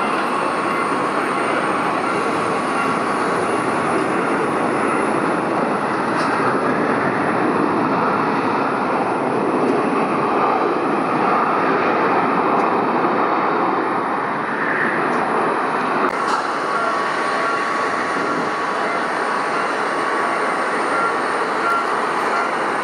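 Steady jet airliner engine noise with a faint high steady whine, swelling slightly midway.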